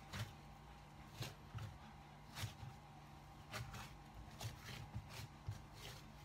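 Hands kneading and patting a lump of soft dough on a countertop: faint, irregular soft pats and rubs, roughly one or two a second, over a steady low hum.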